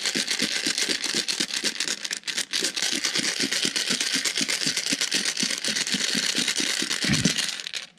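Metal fuel injectors and jet fuel rattling and sloshing inside a lidded cup as it is shaken hard in a rapid, even rhythm, loosening the copper sealant from the injectors; the shaking stops shortly before the end.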